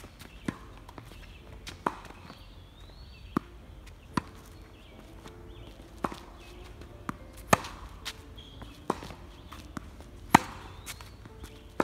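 Tennis rally: the sharp pops of rackets striking the ball and the ball bouncing on the hard court, about one every second. The loudest hit comes from the near player's forehand about ten seconds in.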